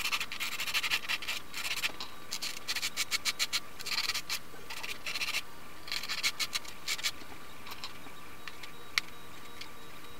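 Sandpaper on a hand-held sanding block rubbed back and forth over the broken front end of a 3D-printed LW-PLA glider fuselage, truing up the break. The scratchy strokes come in quick bursts of several a second for the first seven seconds, then give way to a few light scrapes and a single sharp click about nine seconds in.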